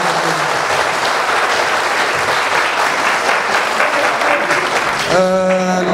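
A hall full of people applauding, a steady clatter of many hands. A man's voice comes in near the end.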